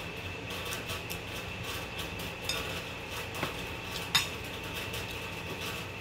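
Light clinks of tableware at a meal: three short clicks, the loudest about four seconds in, over a steady background hum.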